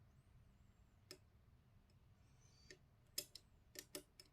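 Faint, scattered clicks and ticks of a precision Phillips screwdriver turning a small screw into the plastic frame of a PS5 controller, about six in all, most of them close together near the end.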